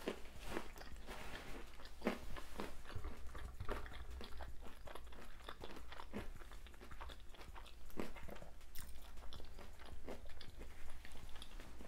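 Close-up chewing of a fried, hot Cheetos-crusted lobster tail: many short, crisp crunches of the fried coating.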